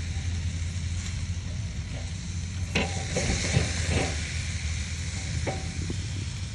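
Oxtail pieces sizzling on a charcoal grill over a steady low hum. A few knocks and clatter come about three to four seconds in as a gloved hand moves the meat on the grate.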